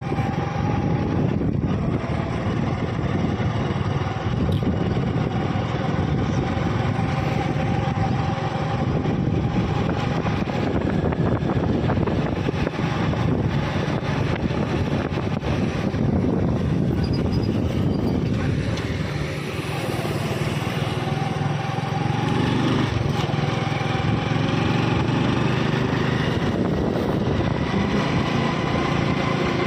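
Small motorcycle engine running steadily while riding along a road, dipping briefly about two-thirds of the way through before picking up again.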